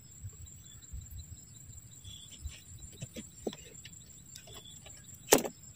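Knife cutting through a thick Aglaonema cane on a plastic crate: faint small clicks and one sharp crack about five seconds in as the blade goes through. A steady high-pitched insect drone runs underneath.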